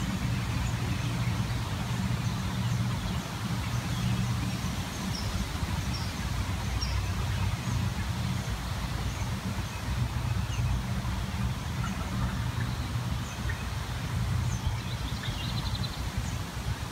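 A steady low mechanical hum, with faint short bird chirps above it.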